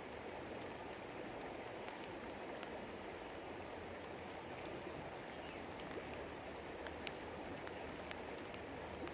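Steady rush of flowing river water, with a few faint scattered ticks.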